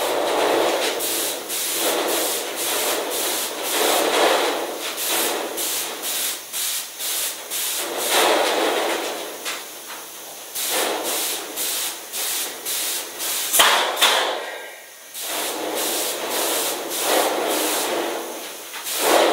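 Airless spray gun fed by a Graco X45 Extreme pump, hissing as it sprays coating in passes, cutting out in many short breaks as the trigger is let go between passes, with a longer pause about two thirds in.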